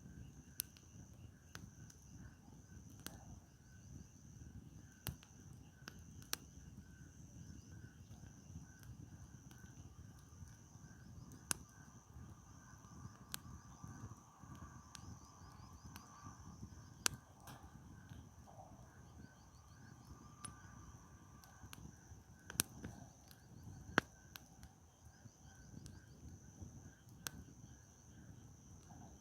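Wood campfire crackling, with sharp pops at irregular intervals over a soft low rush, a few of them much louder than the rest. Insects chirp steadily in the background.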